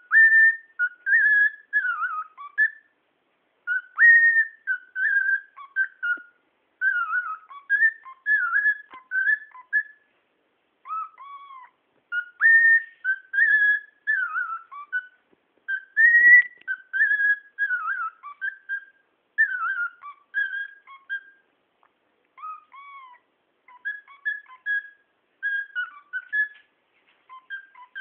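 Cockatiel whistling phrase after phrase of clear notes that slide up and down, with a couple of short pauses.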